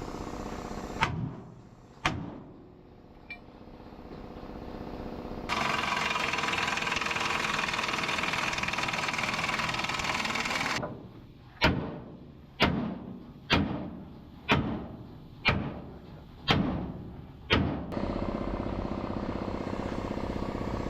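Seven hammer blows on the truck's sheet metal, about a second apart, each ringing briefly. Before them a steady machine noise runs for about five seconds, and a steady engine-like hum takes over near the end.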